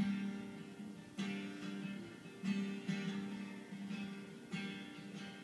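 Acoustic guitar strumming slow chords, a strum every second or so: the instrumental close of a song after its last sung line.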